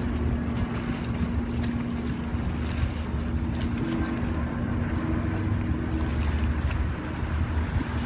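Steady drone of the engine of the boat the recording is made from: a constant hum over a low rumble, with water wash and wind on the microphone.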